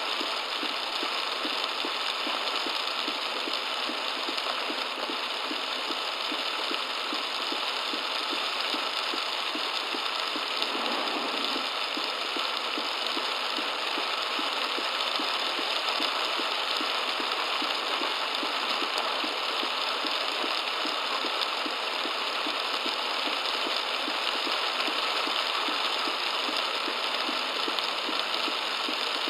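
Torrential rain beating on a car's roof and windshield, picked up by the dashcam inside the car: a loud, dense, steady noise with a fine regular pulsing underneath.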